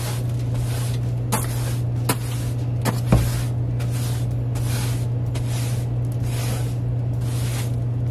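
Bristle hand brush sweeping dust off a wooden shelf in quick repeated strokes, about two swishes a second, with a few sharp knocks of the brush against the wood in the first few seconds. A steady low hum runs underneath.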